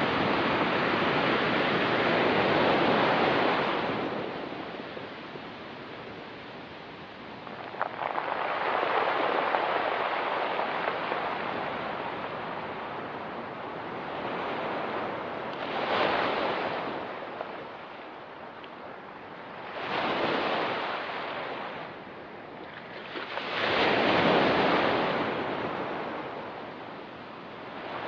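Ocean waves breaking and washing up a pebble beach, the surf rising and falling in about five surges a few seconds apart.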